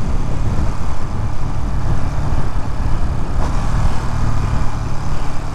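Ducati Monster motorcycle under way, its L-twin engine running with a steady low drone under road noise.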